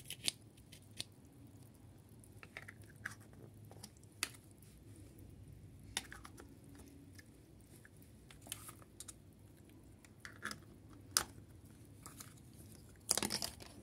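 Plastic stick caps being pressed onto a plastic ice-lolly mould: a scattered series of short, sharp plastic clicks and light handling rubs, with a louder rustling burst near the end.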